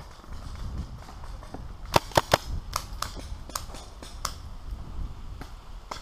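Paintball markers firing: a quick burst of three sharp pops about two seconds in, the loudest, then single quieter pops scattered through the rest.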